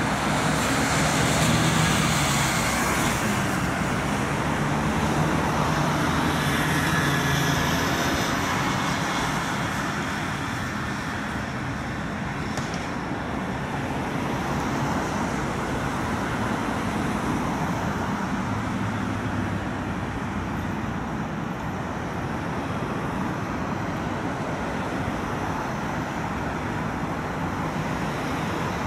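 Steady city road traffic, with a car's engine passing close by in the first few seconds.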